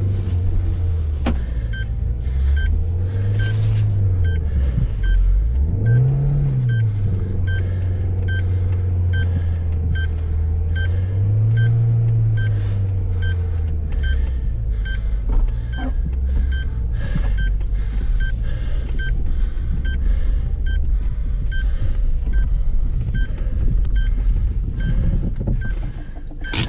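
A car engine revving up and down several times, straining to pull the car out of deep snow, then running steadier. A small electronic beep repeats about twice a second throughout.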